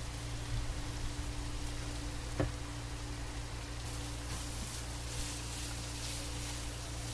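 Sliced onion, green pepper and carrot sizzling in a hot non-stick wok, with a steady low hum underneath and one sharp knock about two and a half seconds in. From about four seconds in a spatula stirs and tosses the vegetables, and the sizzle turns brighter with quick scraping strokes.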